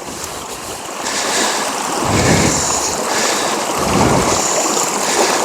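Steady rush of river water, with wind buffeting the microphone in low rumbles about two seconds in and again around four seconds.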